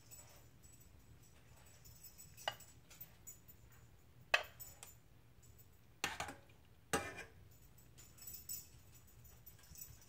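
Metal spoon clinking against dishes as glaze sauce is scooped and drizzled: a few scattered sharp clinks, the louder ones in the second half, over a faint steady hum.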